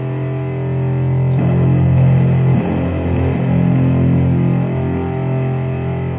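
Electric guitar played through heavy effects and distortion, holding a low, sustained dark-ambient drone. A new note swells in about a second and a half in with a smeared attack, and the drone shifts again shortly after.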